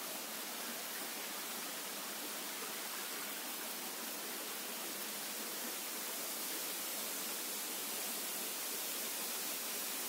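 A waterfall's steady rushing, an even hiss that holds without a break.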